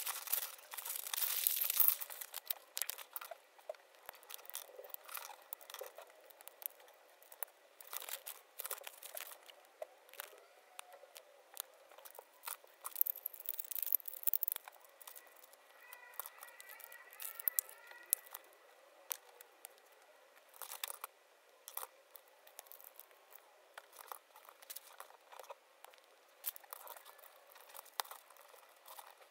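Sped-up handling of a Playmobil ice cream cart set: a thin plastic parts bag crinkling and tearing open, most densely in the first couple of seconds, then a rapid string of small hard-plastic clicks and rattles as the pieces are fitted and snapped together.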